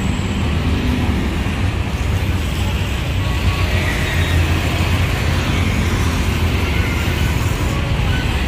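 Steady street traffic: car and motorbike engines running and passing close by, with a constant low rumble.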